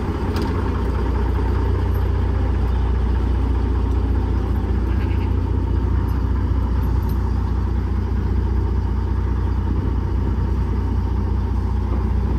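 A heavy truck's diesel engine idling steadily, with a constant low rumble and no revving.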